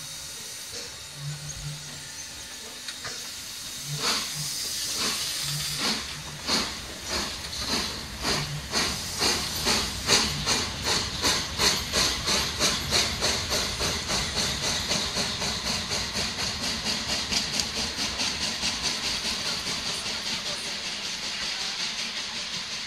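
Steam locomotive 475.111 (ČSD class 475.1) getting under way, with a steady hiss of steam from its open cylinder drain cocks. About four seconds in, exhaust chuffs begin, slow at first and quickening to about three a second. They fade a little as the engine draws away.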